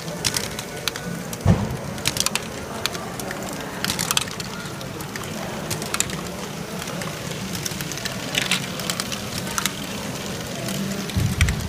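LEGO Great Ball Contraption modules running: small plastic balls and LEGO mechanisms clicking and clattering irregularly over a steady low hum, with a dull thump about a second and a half in and another near the end.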